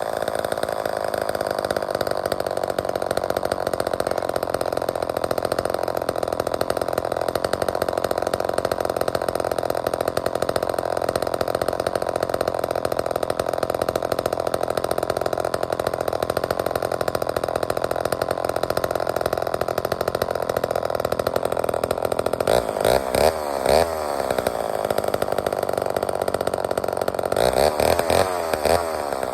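Vintage Lombard two-stroke chainsaw engine running steadily, then its speed swinging up and down about 22 seconds in and again near the end.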